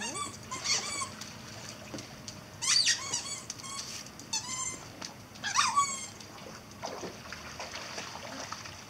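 A dog whining in about half a dozen short, high-pitched whines with falling pitch, the loudest about three and six seconds in.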